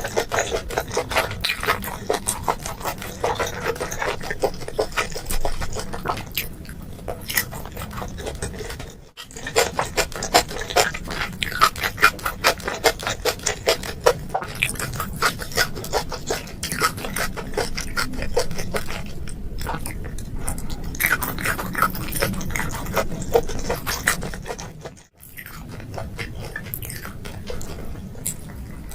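A person chewing food close to the microphone in rapid, wet, clicking bites, pausing briefly twice.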